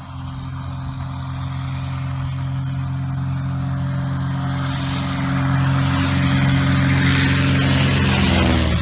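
An overloaded small plane's engine running at high power, growing steadily louder as it comes closer. Near the end its pitch drops sharply as it passes by.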